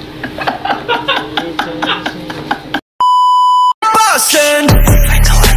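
Background music with a light regular click cuts off, and after a brief gap a loud, steady electronic bleep sounds for under a second. Falling pitch sweeps follow, leading into loud music with a heavy deep beat.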